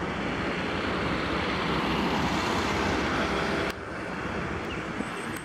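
Steady rushing noise of road traffic, swelling a little and then dropping off abruptly about three and a half seconds in.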